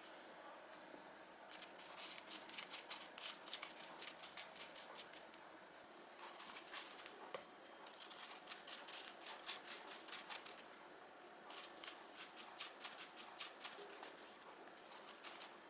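Wooden spoon dabbing and spreading wet chili seasoning paste over stacked perilla leaves: faint runs of quick, small wet taps and clicks in several spells with short pauses between.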